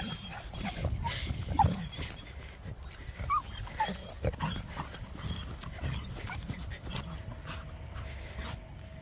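Several short, squeaky animal calls over a steady low rumble.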